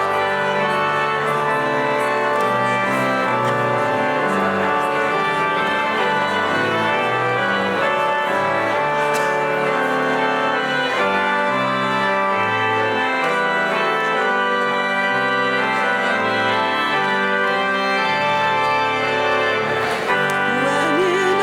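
Church organ playing slow sustained chords that change every second or so. Near the end a singing voice with vibrato comes in.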